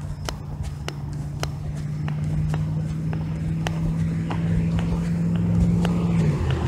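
Footsteps walking, muffled through a phone in a trouser pocket, over the steady hum of a car engine that grows louder and drops in pitch near the end.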